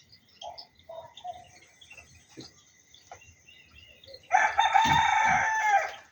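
A rooster crows once, loudly, about four seconds in, a single drawn-out cock-a-doodle-doo. Before it, short, quieter bird calls and clucks come and go.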